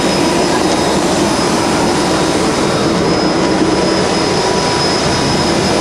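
Aircraft engines running in a steady, loud drone: an even rush of noise with a few thin, steady whines on top and no change in pitch or level.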